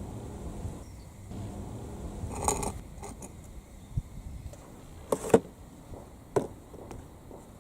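Balls clattering through a water marble-run track: a cluster of knocks about two and a half seconds in, then sharp clicks about five seconds in, the loudest of them, and another a second later, over a low wash of running water.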